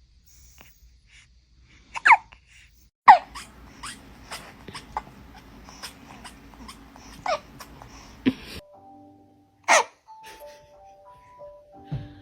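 Newborn baby hiccuping several times, each hiccup a short squeaky sound that drops in pitch, a second to a few seconds apart. A simple tinkly melody plays over the last few seconds.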